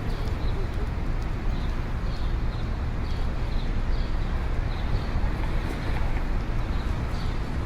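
City street ambience: a steady low rumble of traffic, with faint light ticks repeating about twice a second.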